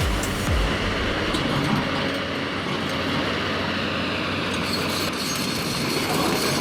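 Heavy machinery running with a steady, even engine and mechanical noise. A thumping music beat dies away in the first half second.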